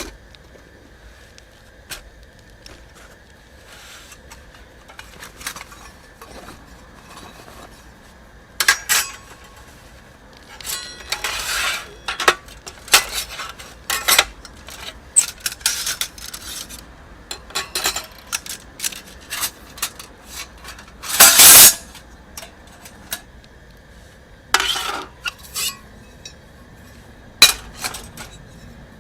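Metal camp gear being handled: irregular clinks, clanks and clatters of stainless steel, with the loudest and longest clatter about two-thirds of the way through.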